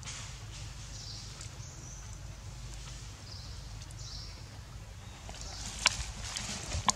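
Dry leaves and twigs rustling and crackling, with sharp snaps, starting in the last couple of seconds over a steady low outdoor rumble. Faint high chirps sound now and then in the first half.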